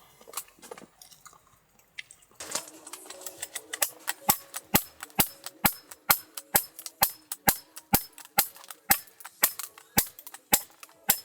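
Sharp clicks in an even rhythm, about two a second, beginning about two and a half seconds in over faint steady tones.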